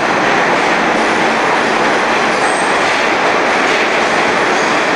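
NYC Subway R32 train, stainless-steel Budd-built cars, pulling out along an underground station platform and picking up speed. A steady loud noise of steel wheels running on rail, with some clatter and wheel squeal.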